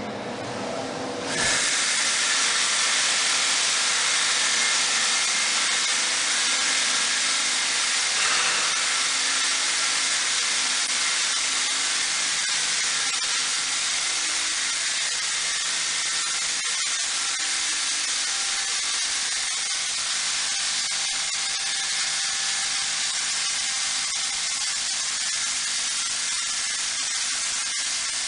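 MistMAXX 360 Hurricane XL sprayer cutting in about a second in, then spraying with a steady, even hiss.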